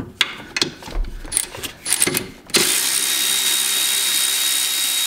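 Metal tools clicking and tapping, then about two and a half seconds in a cordless electric ratchet runs steadily with a thin high whine, backing out a 13 mm ABS bracket bolt.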